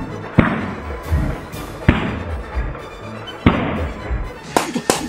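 Water balloons bursting one after another as the spike on the nose of a Plarail toy bullet train pierces them: three sharp pops about a second and a half apart, each with a splash of water. A quicker run of small clicks follows near the end.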